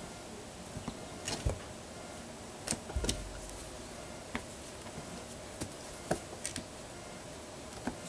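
Kittens play-fighting: scattered light taps and clicks of paws and claws on the floor, with a soft thump about three seconds in.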